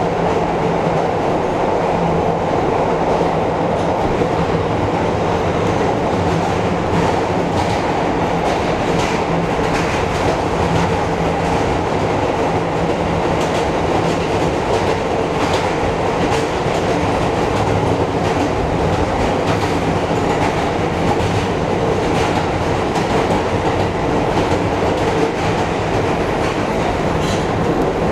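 R160 subway train running at speed, heard from inside the front car: a steady rumble of wheels on rail, with a clickety-clack of wheels over rail joints and a steady hum underneath.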